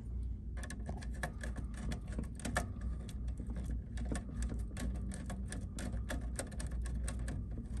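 Screwdriver clicking and scraping against the terminal screw while a green wire is fastened into the controller's green screw-terminal port: a quick, irregular run of small clicks over a steady low hum.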